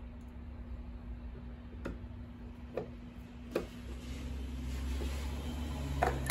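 A screwdriver driving screws into an electric guitar's control plate, with a few short clicks and taps of metal on metal and wood. A steady low hum runs underneath.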